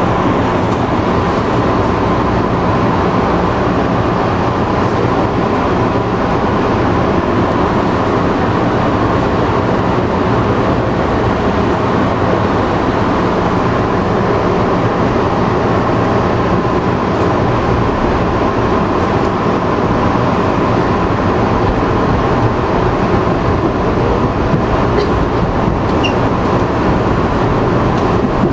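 MBTA Red Line 01800-series subway train heard from the cab: a steady rumble and hum with a constant tone, even in loudness throughout.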